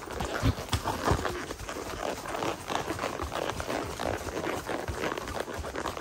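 Horses walking on grass and packed dirt, their hooves making soft, irregular hoofbeats.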